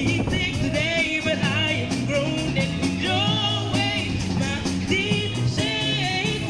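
A live band playing an upbeat song through a PA, with women singing over keyboard, bass and a steady beat.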